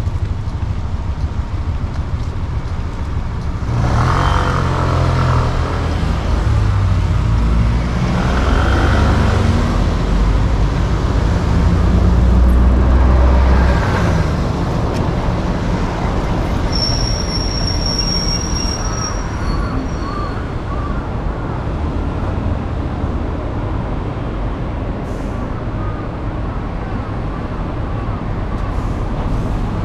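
Road traffic on a city street: a steady rumble of vehicles, heaviest over the first half as a vehicle with a deep engine passes close by, with a brief high-pitched squeal about seventeen seconds in.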